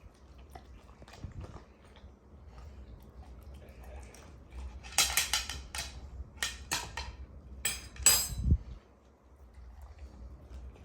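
A chocolate Labrador eating from a dish: soft clicks, then a run of sharp clinks and clatters of the dish about halfway through, loudest near the end of that run.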